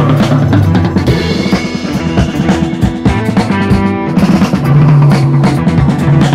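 Background music with a steady drum-kit beat and bass.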